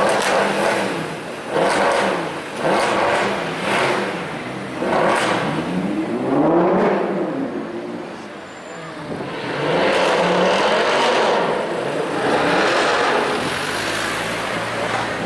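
Mercedes-AMG C63 V8 engine revved again and again, its pitch climbing and dropping with each blip of the throttle, with one longer rev and fall about six to seven seconds in.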